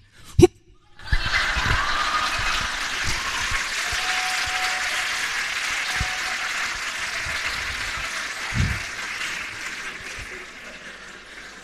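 Live theatre audience laughing and applauding, starting about a second in and slowly dying away near the end.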